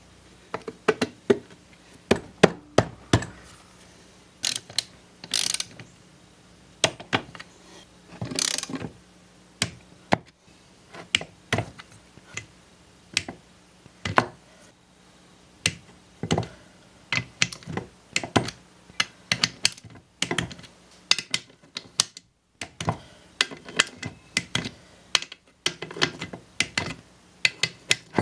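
Socket ratchet clicking in short, irregular runs as bolts on the engine's crankcase cover are turned in, with the odd clink of metal parts.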